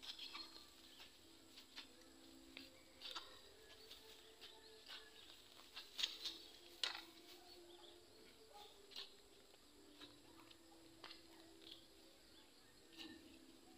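Faint, irregular clicks and scratches of hand-weeding in a vegetable garden, with two louder snaps around six and seven seconds in.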